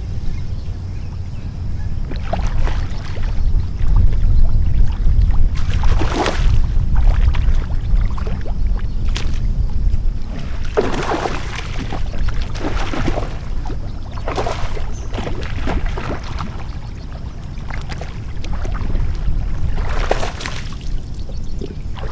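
Wind rumbling on the microphone, with a hooked carp splashing at the surface and a man wading in the shallows to land it in a net. The splashes come in several separate bursts a few seconds apart.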